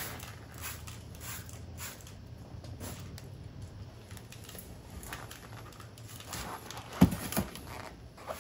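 Trigger spray bottle squirting surface-prep cleaner onto a plastic car grille in short, irregular spritzes, with a microfiber towel wiping. Two louder low thumps about seven seconds in.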